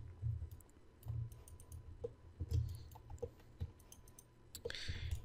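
Scattered computer mouse clicks with soft low thumps from handling the mouse on the desk, and a short hiss near the end.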